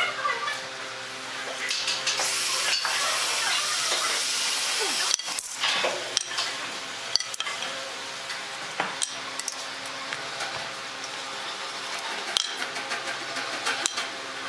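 Light clicks and metallic clinks of a steel try square and pen set down and shifted on pine boards on a concrete floor while cuts are marked out. A stretch of hissing noise runs from about two seconds in to five seconds in.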